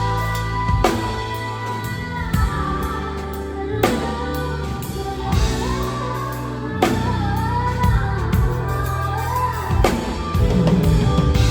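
A pop band playing a song, with a singer's voice over sustained bass notes and a drum kit; a cymbal crash lands about every three seconds.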